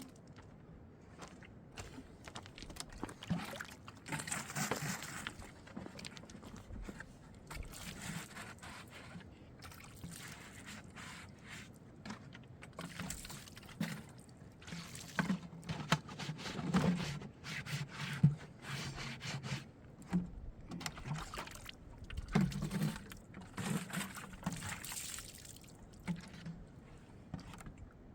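Water splashing and sloshing in irregular bursts of uneven length.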